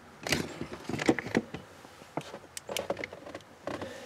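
Irregular light clicks, taps and rustles of handling under a car's dashboard: a camera being moved and bumped against plastic dash trim and the HVAC box.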